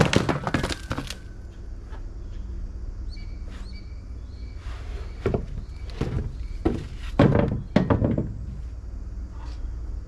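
Several thunks and knocks: a cluster at the start, one about halfway through and another group near the end, over a steady low rumble.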